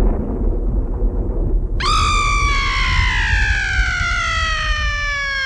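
The ride's recorded thunder rumble, then about two seconds in a long, high scream that slides slowly downward in pitch: the stretching-room blackout effect after the hanging ghost is revealed.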